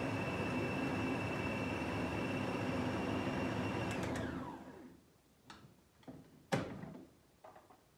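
Electric food processor running steadily while pulping tomatoes, switched off about four seconds in, its motor whine falling away as it spins down. Then a few short knocks, the loudest about six and a half seconds in.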